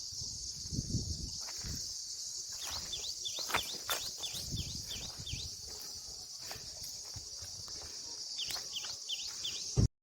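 Outdoor ambience of a steady high insect drone, with a bird calling in quick runs of short falling chirps, twice. Low thuds sound now and then, and everything cuts off suddenly after a sharp thud near the end.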